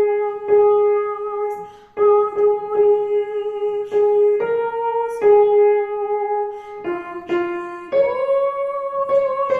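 Slow music: a melody of long held notes, each starting sharply, with one note near the end sliding up into a wavering held note.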